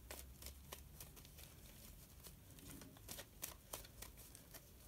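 Tarot cards being shuffled in the hands: faint, irregular flicks and snaps of the deck, a few each second.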